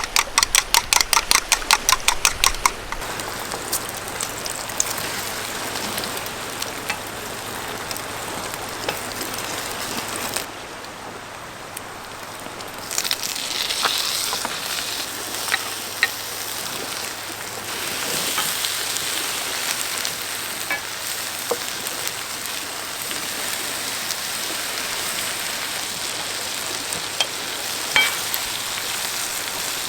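Food sizzling and frying in a pan, a steady hiss with a few small pops. A quick run of sharp, evenly spaced ticks, about five a second, opens it.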